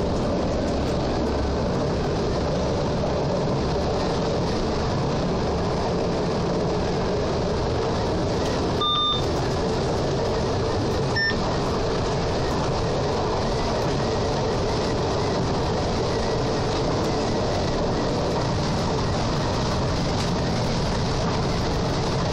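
SWEG NE81 diesel railcar set running steadily along the track, heard from the driver's cab of its driving trailer: an even rumble and hum. Two short electronic beeps sound in the cab, about nine and eleven seconds in.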